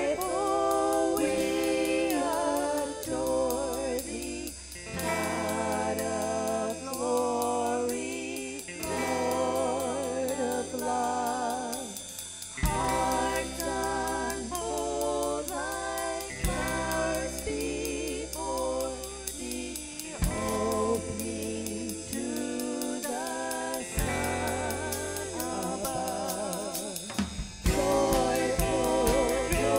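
Contemporary worship music: voices singing a melody over a band, with occasional drum hits.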